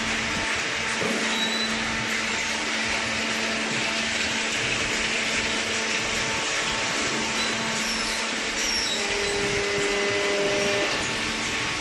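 Hydraulic waste paper baler running: a steady mechanical hum and hiss from its motor and hydraulic pump, with a brief higher tone joining in near the end.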